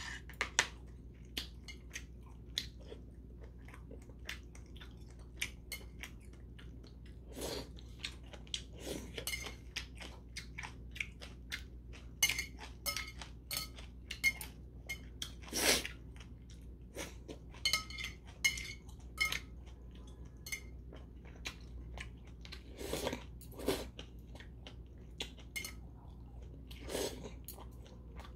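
Close-up chewing of spicy mixed noodles with sea snails and shiitake mushrooms: wet mouth smacks and crunches, with a few louder slurps of noodles. Metal chopsticks click against the ceramic bowl.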